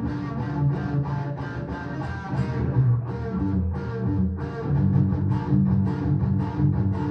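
Les Paul-style electric guitar strummed with the bare fingers in a steady rhythm, playing a minor-key one–four–five progression with the first and fourth chords minor and the fifth a dominant seventh.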